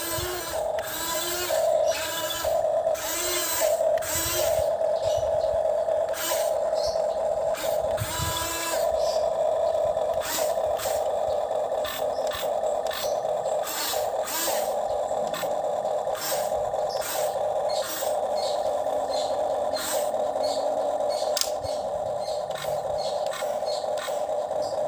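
Small electric motor of a toy excavator whirring steadily, with repeated clicks and scraping from its moving parts.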